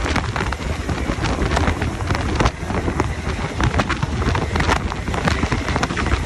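Heavy wind buffeting on the microphone over the low, steady rumble of a semi truck's straight-piped Cat C15 diesel cruising at road speed on a wet highway.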